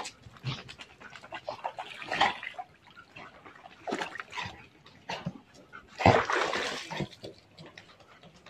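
Dog vocalising several times, the loudest and longest call about six seconds in.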